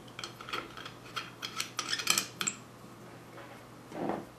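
Small metal carburetor parts clinking and tapping together as they are handled and fitted: about a dozen sharp, irregular clicks in the first two and a half seconds, then a duller knock near the end.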